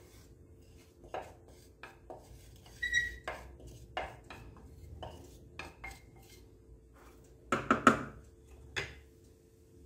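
Irregular clicks and knocks of a wooden spoon and a container against the stainless steel bowl of an electric grinder as roasted almonds and icing sugar are tipped in and stirred. The loudest cluster of knocks comes near the end.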